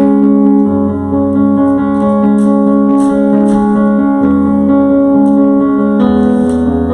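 Keyboard playing slow, sustained chords with a low bass line, changing chord about six seconds in.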